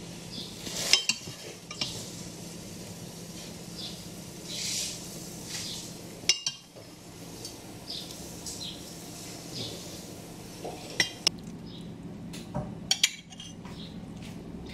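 A steel spoon clinking and scraping against a glass bowl and a metal baking tray as cooled sugar syrup is spooned over crisp baked baklava rolls. Irregular sharp clinks come with soft hissing patches in between.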